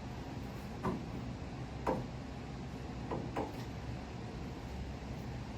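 Hand tools clinking and knocking as tractor side panels are unbolted: four short, sharp knocks, the last two close together, over a steady low hum.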